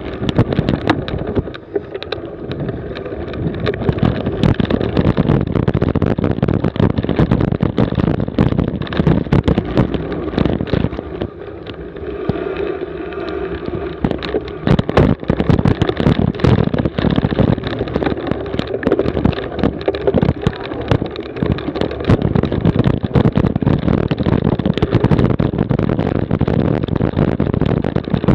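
Wind rushing over an on-board camera's microphone as a cyclocross bike is ridden fast over bumpy grass, with a steady din of irregular rattles and knocks from the rough ground.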